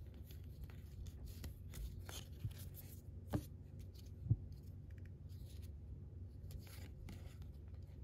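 Baseball trading cards being flipped through by hand: faint slides and flicks of card stock as each card is moved from the front of the stack to the back, with two sharper snaps a little over three seconds in and again about a second later.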